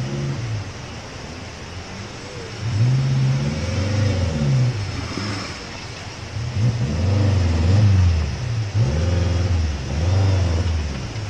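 Suzuki Jimny (SJ-series) 4x4's engine revving in repeated bursts under load as it crawls over rocks and mud, the pitch rising and falling with each blip of the throttle.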